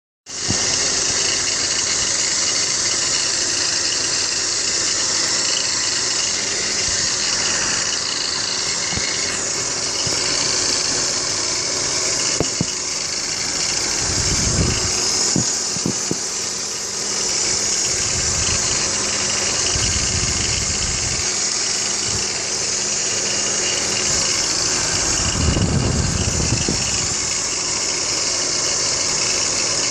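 BMW X3 E83 engine running with a loud, steady, high-pitched whirring noise over it, with a few low rumbles in the middle and near the end. The owner suspects the noise comes from a worn tensioner pulley or worn water pump bearings.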